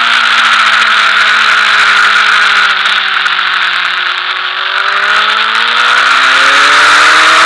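Sport motorcycle engine heard onboard under heavy wind rush while cornering on track. Its revs sag slowly to a low point about halfway through and then climb again as the throttle opens on the corner exit.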